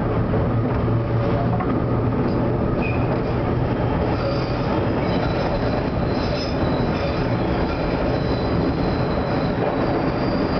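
Vintage Lo-V subway train running through the tunnel just after leaving a station, heard from on board: steady rumble of the wheels and running gear with a low hum in the first few seconds, then high-pitched wheel squeal from about four seconds in.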